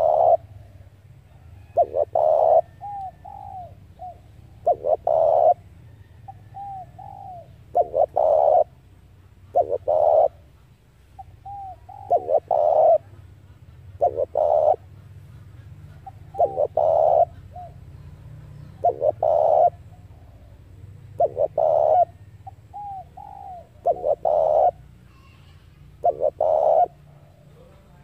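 Spotted dove cooing, one phrase repeated about every two to two and a half seconds, each with a short curling note, over a faint low hum.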